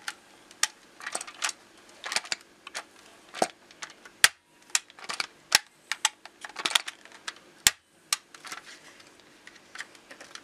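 Plastic Nerf toy blasters and their packaging being handled: irregular sharp clicks and knocks with light rustling in between, a few sharper clicks standing out.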